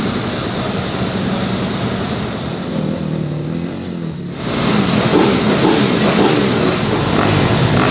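Dirt bike engine running and revving, its pitch rising and falling; about halfway through it gets louder, with quicker changes in pitch.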